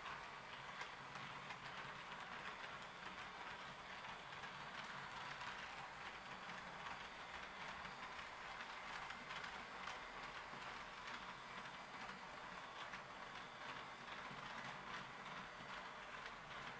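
HO-scale Roco model train running on the layout's track: a steady, quiet rolling rattle with many small clicks of the wheels over rail joints and points.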